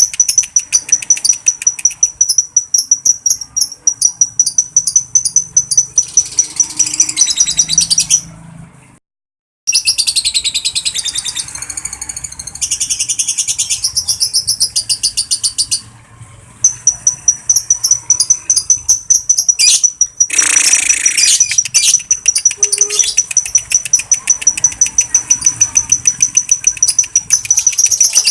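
Lovebird ngekek: a long, rapid chattering trill of shrill repeated notes, the bird's calling song. It breaks off for about a second some 8 seconds in and pauses briefly near the middle, then runs on.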